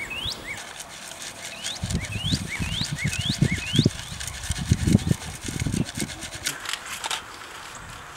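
Soil being shaken through a stainless steel sieve into a metal bowl: a run of uneven scraping strokes. A bird repeats short rising calls over the first few seconds.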